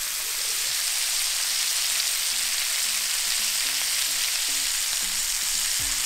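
Venison backstrap steaks sizzling in hot fat in a cast-iron skillet: a steady, even frying hiss.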